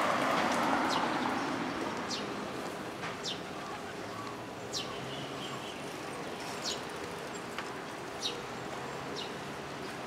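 A small songbird calling repeatedly: short, high notes that slide downward, roughly one a second. Under them is a steady rushing noise that is loudest at the start and eases off over the first few seconds.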